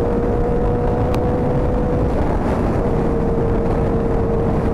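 Motorcycle riding at a steady speed: a steady engine note over heavy rushing wind noise. The engine note breaks off for a moment about halfway through, then comes back at the same pitch.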